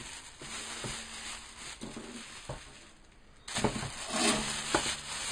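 Handling noise: scattered knocks and rustling as the camera and the stand's metal desk-clamp parts are handled. The sound turns suddenly louder about three and a half seconds in.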